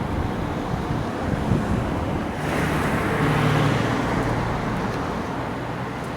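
A vehicle passing on the road, its engine and tyre noise swelling about two and a half seconds in and then fading, over steady wind noise on the microphone.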